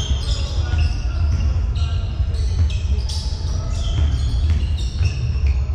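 Basketball being played on an indoor court: the ball bouncing, with many short high squeaks over a steady low rumble.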